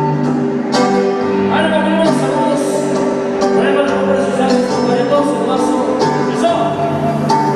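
Live band music playing loudly, with held melody notes over repeated drum and cymbal hits.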